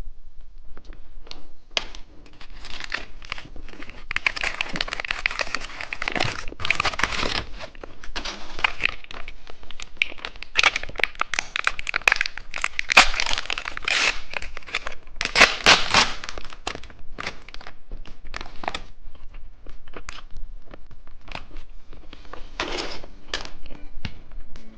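Plastic candy wrapper crinkling and tearing as packaging is handled and opened, in dense crackly bursts that are heaviest through the middle of the stretch.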